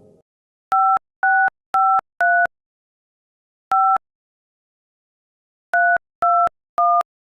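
Telephone touch-tone (DTMF) keypad beeps, each a short two-pitch tone: four quick ones, a pause, a single one, then three more near the end, as if a number were being dialled.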